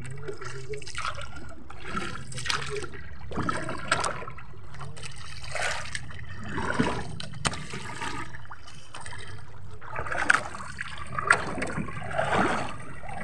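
Water trickling and splashing at the side of a small wooden fishing boat as a wet net is handled over the gunwale by hand, with a few light knocks against the hull.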